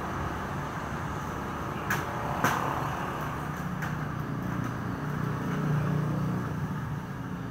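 The steel screw clamp of a homemade inner-tube patching press is being hand-tightened with a T-handle. Two sharp clicks come about two seconds in, over a steady low rumble.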